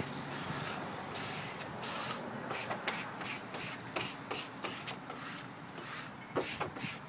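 A plastic squeegee pressing a vinyl window sticker onto car glass in quick repeated swishing strokes, about two or three a second, as the backing paper is peeled away.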